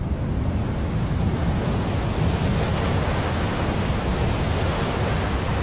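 Hurricane storm noise: a steady rush of wind and water, heaviest in the low end, cutting off abruptly at the end.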